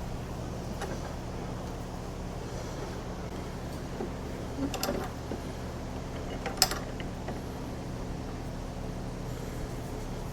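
Sparse metallic clicks and creaks from a large ball joint press being wound in to push a rubber bushing out of an ATV A-arm. The sharpest click comes about six and a half seconds in, over a steady low hum.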